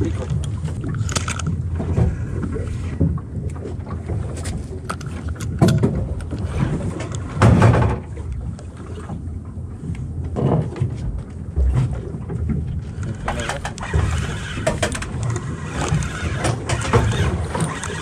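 A spinning reel being cranked to work a jig, over a steady low rumble of wind and water on a small open boat, with scattered knocks and handling bumps, the loudest about five and a half and seven and a half seconds in.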